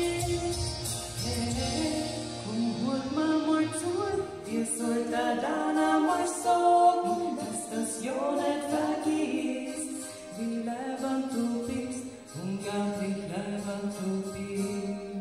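Two women singing a slow duet into microphones through a PA, over musical accompaniment; a low bass line drops out about two seconds in, leaving mostly the voices.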